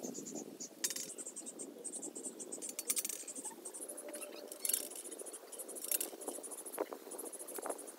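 Rapid high-pitched chirping in the background, with a few light clicks and scrapes.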